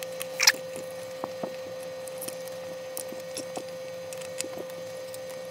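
Small irregular clicks and taps of metal parts being handled and screws worked with an Allen wrench while a stepper-motor bracket is fastened to an aluminium extrusion. A brief scrape comes about half a second in, and a steady faint hum runs underneath.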